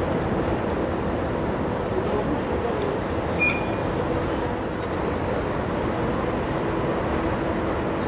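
Steady low rumble and hum of the Mega Andrea ferry's engines as it arrives, with a brief high chirp about three and a half seconds in.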